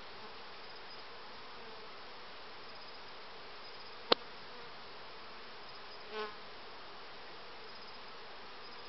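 Honeybees buzzing steadily around open hives. A single sharp click about four seconds in, and a brief softer knock about six seconds in.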